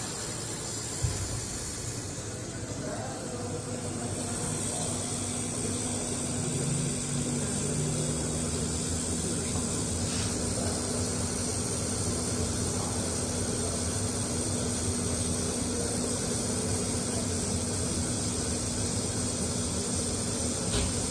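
Steady hissing factory machinery noise with a low hum underneath.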